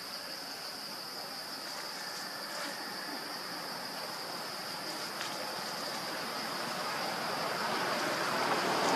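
Steady high-pitched drone of insects in the forest, with a broad rushing noise that swells louder toward the end.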